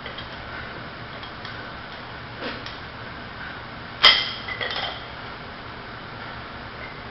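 A single hard metal clank with a brief bright ring, followed about half a second later by a lighter rattling clatter of metal gym equipment.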